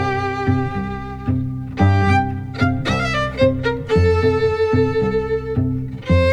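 Background music: a bowed-string melody, violin-like, over a steady repeating bass line, with one note held for about a second and a half midway.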